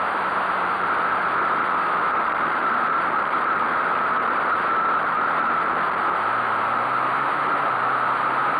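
Pit bike engines on a dirt motocross track, heard from a camera mounted on a riding bike: a loud, steady rushing noise, with the engine pitch dipping and climbing faintly underneath as the throttle changes.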